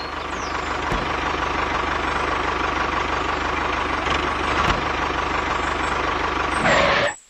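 Mini tractor engine running steadily as it drives, with a constant whine above the low running sound. It cuts off abruptly near the end.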